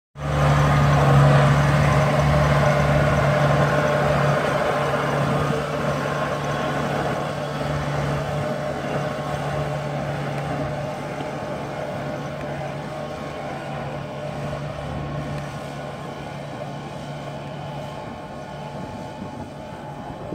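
Kubota DC-68G tracked rice combine harvester running steadily with a low engine hum. The sound fades gradually as the combine moves away across the field.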